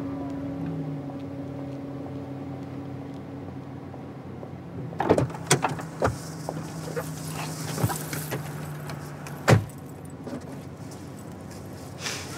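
Someone getting into a car: a run of clicks, knocks and jangling keys, then a car door shut with one loud thump about three quarters of the way through, over a steady low hum.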